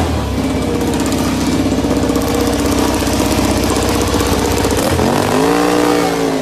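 Ducati MotoGP bike's V4 engine idling with a fast pulsing beat. About five seconds in it revs up briefly and the pitch eases back down.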